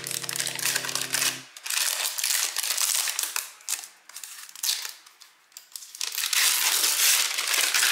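Frosted plastic protective film crinkling and crackling as it is peeled off a Dyson Airwrap handle, in uneven bursts with a short lull in the middle and a fuller stretch near the end.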